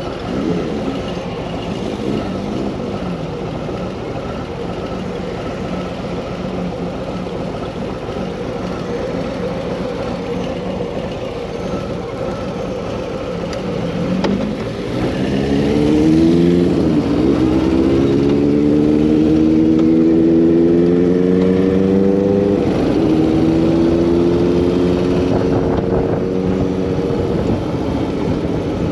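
Harley-Davidson Street Bob 114's Milwaukee-Eight 114 V-twin idling, then pulling away about halfway through. Its pitch rises through the gears, dropping back at two upshifts.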